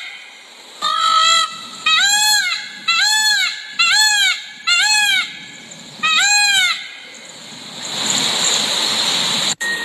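Peacock calling: six loud, honking cries about a second apart, each rising then falling in pitch. Near the end comes a couple of seconds of rushing noise and a sharp click.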